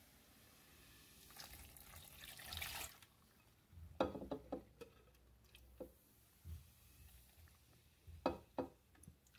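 Beer poured from a can into a glass blender jar, a fizzing pour lasting about a second and a half, followed by scattered light knocks and clicks of the jar and can being handled, with a few sharper knocks near the end.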